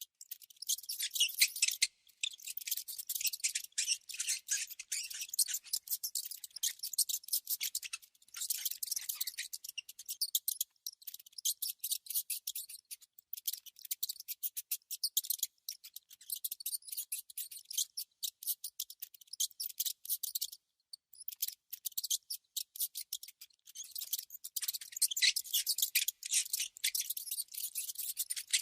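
A mouse making rapid, high-pitched clicking and scratching sounds in dense runs, with a short pause about two-thirds of the way through.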